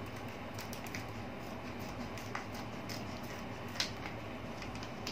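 Scissors cutting open a chip packet: a few faint snips and crinkles, the sharpest about four seconds in, over a steady low room hum.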